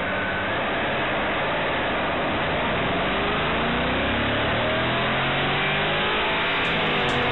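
Car engine accelerating hard, its pitch climbing steadily through the second half.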